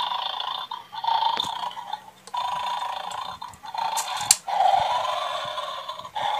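Battery-powered toy bulldog from the 'Beware of the Dog' bone-stealing game playing its recorded dog snoring through a small speaker, in repeated breaths about a second long with short gaps. Two sharp clicks come about four seconds in, as bones are lifted from its bowl with the plastic tongs.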